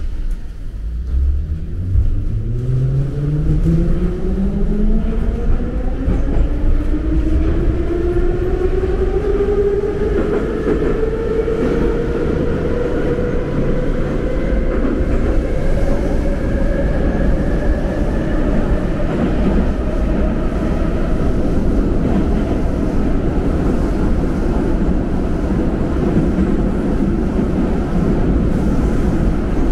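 Metro train's traction motors whining as the train accelerates, heard from inside the passenger car. The whine rises in pitch over about ten seconds and then levels off, over the steady rumble of the car on the rails.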